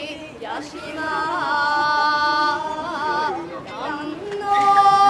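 Shigin, chanted Japanese poetry, sung by one high voice in long held notes that waver and bend in pitch, the loudest and longest note coming near the end; this recitation is the accompaniment for a kenbu sword dance.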